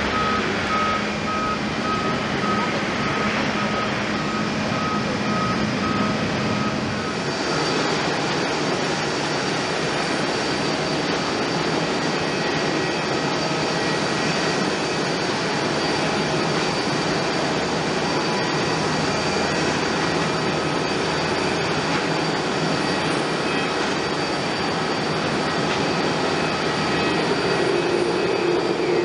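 Jet engine noise from a Boeing 737-800 climbing out after takeoff. After a cut about seven seconds in it becomes the steady engine noise of a Boeing 777-200ER on final approach to land, with a thin high whine over it.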